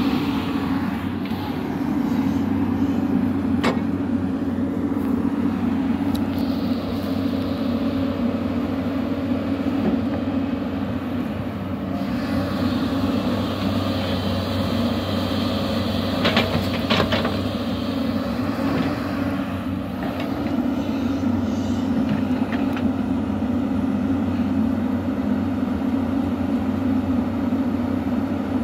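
Hyundai Robex 215L crawler excavator's diesel engine running steadily under load while it digs heavy mud, with a few sharp knocks from the working machine: one about four seconds in and two close together around sixteen seconds in.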